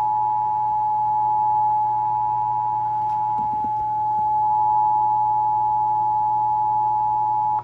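Emergency Alert System attention signal: two steady tones (853 and 960 Hz) sounding together, held unbroken and cutting off sharply near the end. It announces the start of an emergency alert broadcast, here a child abduction (Amber) alert.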